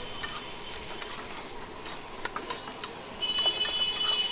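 Steel spatula tapping and scraping on a flat iron tawa while chaat is chopped and mixed, as a string of sharp clicks. About three seconds in, a steady high ringing tone sets in and carries on.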